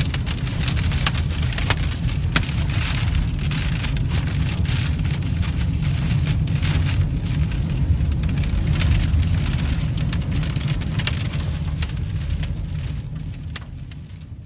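Heavy rain pelting a vehicle's roof and windows, heard from inside the cabin: a dense patter of sharp drop hits over a steady low rumble, fading out near the end.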